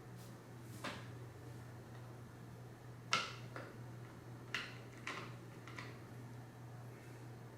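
Hand-assembly clicks and knocks from fitting a plastic side cover to a desk chair's seat mechanism and turning its screws with a poorly fitting driver: about five short, sharp clicks, the loudest about three seconds in, over a steady low hum.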